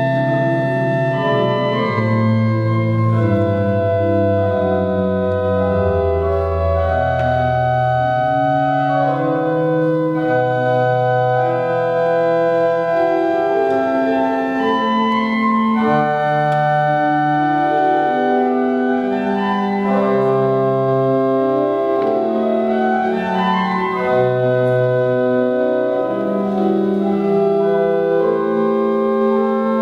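Organ playing baroque music: sustained notes in several voices over a bass line that steps down early on, with quick rising runs in the upper voices in the second half.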